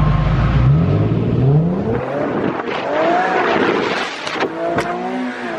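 Car engine running low and steady, then revving up in rising sweeps about a second in, followed by more revving that rises and falls as cars pull away. A single sharp click comes near the end.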